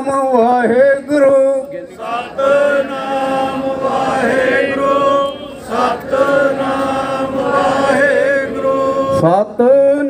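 Sikh devotional chanting, a voice singing long held notes, with the sound growing fuller from about two seconds in.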